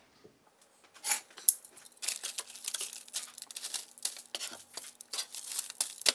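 Metal kitchen tongs clicking and parchment paper crinkling as raw chicken breasts are flipped on a sheet pan. After about a second of quiet come a couple of sharp clicks, then a busy run of crackling from about two seconds in.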